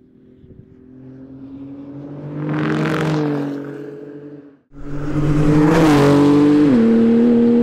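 Porsche 911 GT2 RS's 3.8-litre twin-turbo flat-six at speed. The car passes by, its engine note swelling to a peak about three seconds in and then fading. After a sudden cut about halfway, the engine is heard loud and steady under power, its pitch stepping down once near the end at a gear change.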